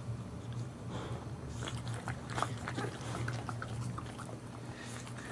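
Mother dog chewing and licking, a run of short wet clicks, over a steady low hum.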